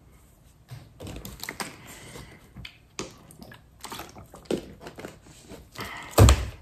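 Crinkling and crackling of a thin plastic water bottle being handled and drunk from, with a loud thump near the end.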